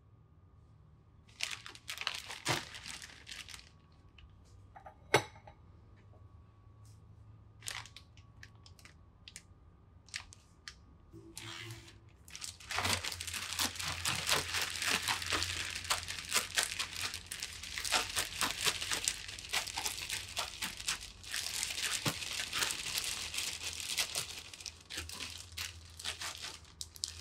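Clear plastic zip-top bag crinkling: a few short rustles and one sharp tap about five seconds in. From about halfway on, the bag crinkles continuously as it is shaken with potato cubes and cornstarch inside to coat them.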